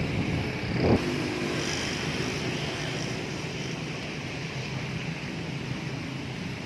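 Strong wind gusting during a rainstorm, with a louder gust buffeting the microphone about a second in, then a steady rush of wind and rain that slowly eases.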